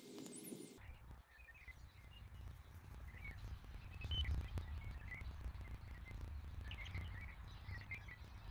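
Outdoor ambience: a low wind rumble on the microphone, with small birds chirping now and then. A steady tone from the moment before cuts off abruptly a little under a second in.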